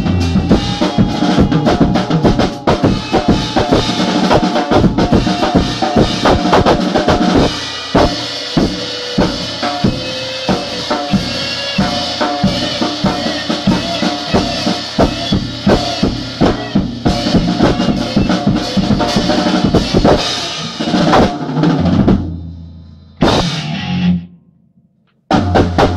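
Drum kit and guitar playing an improvised jam, with busy kick, snare and rimshot hits under sustained guitar notes. Near the end the sound fades and drops out almost completely for about a second, then comes back abruptly: the choppy audio of the phone recording.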